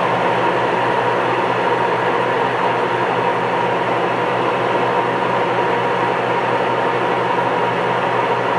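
Huebsch coin-operated top-load washing machine running with a loud, steady mechanical noise and a constant whine. The drive belt is newly replaced, and the owner asks whether the noise is a bearing issue.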